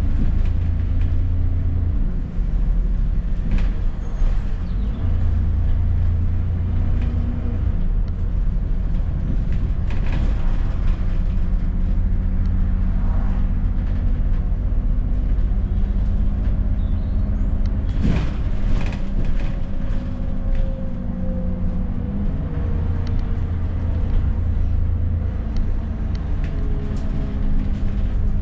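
Alexander Dennis Enviro400 double-decker bus running, its engine hum and road noise shifting in pitch several times as it changes speed. There is a brief sharp noise about eighteen seconds in.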